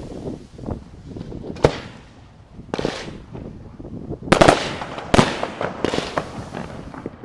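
Aerial fireworks shells bursting: a series of sharp bangs, each echoing away, with the loudest pair a little past the middle.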